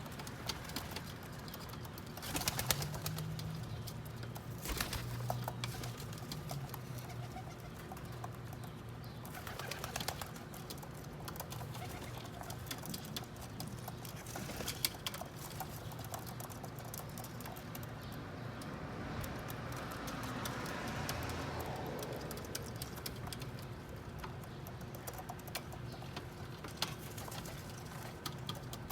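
Feral pigeons cooing low, with scattered sharp taps mixed in.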